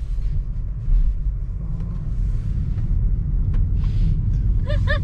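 Steady low rumble of a car in motion, road and engine noise heard from inside the cabin.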